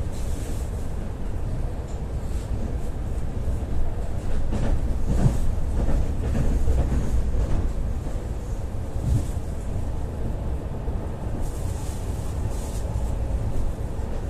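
Ivolga 4.0 electric train running, heard from inside the carriage: a steady low rumble with a few scattered knocks from the wheels and running gear.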